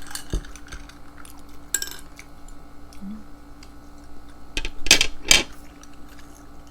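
Chopsticks and tableware clicking and knocking during a meal: scattered light clicks, then two louder knocks about half a second apart about five seconds in.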